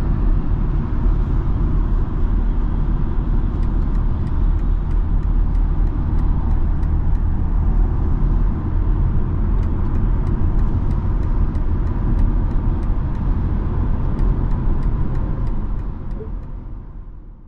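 Inside the cabin of a 2022 BMW X3 M40i cruising on a freeway: a steady low road and tyre rumble. A light, regular ticking at about three a second comes and goes twice, and the sound fades out near the end.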